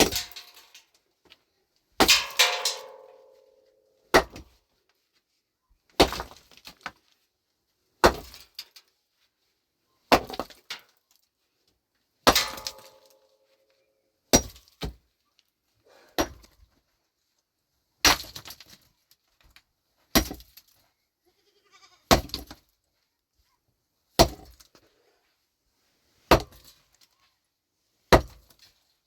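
Pickaxe striking rock in a steady rhythm, one heavy blow about every two seconds, each followed by a few small clicks of loose stone. Two of the blows, about two seconds in and near the middle, ring briefly with a metallic tone.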